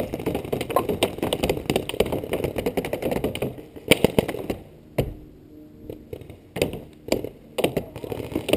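Paintball markers firing: a fast, dense string of shots for about the first three seconds, then thinning to single sharp pops every half second to a second.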